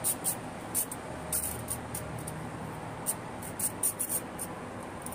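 Small hacksaw cutting a scrap section of fishing rod: about a dozen brief, high rasping strokes, unevenly spaced, with a pause near the middle, over a low steady hum.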